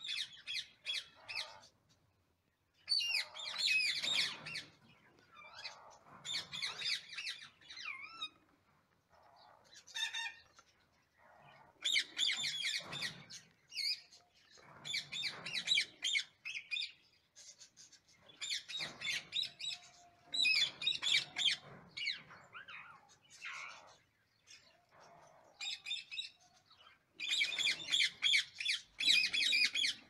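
Rose-ringed (Indian ringneck) parakeets calling in the nest box during formula feeding: bursts of rapid, grating calls a second or two long, repeated with short pauses and loudest near the end.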